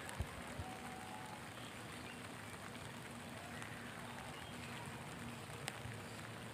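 Steady rain falling, an even soft hiss, with a few faint sharp ticks.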